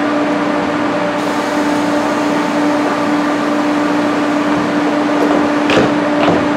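Steady hum of an Amtrak Acela trainset standing at the platform, its cooling fans and air conditioning running with a constant tone. Two brief sharp sounds come near the end.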